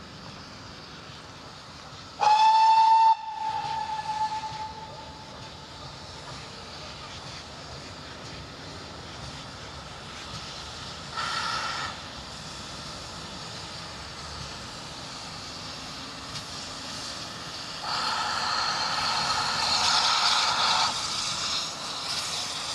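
A Great Western steam locomotive's whistle gives one short, loud blast about two seconds in, over a steady hiss of steam from locomotives standing in steam. A brief burst of steam comes near the middle, and near the end a louder rush of steam hiss builds as Manor class 4-6-0 No. 7827 draws in towards the platform.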